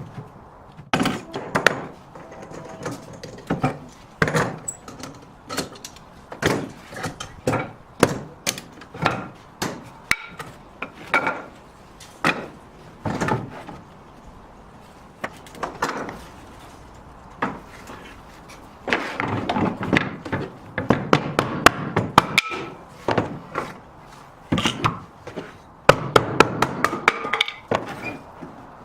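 Series of sharp knocks of hard blows on wood, about one or two a second, with two denser runs of quick strikes about two-thirds through and near the end.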